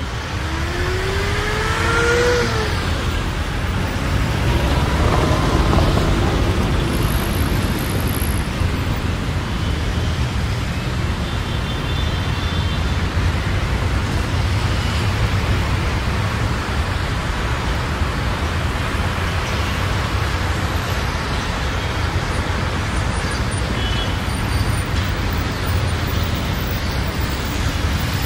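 Motor vehicle engines running with a steady low rumble, like road traffic. About a second in, a whine rises in pitch for about a second and a half.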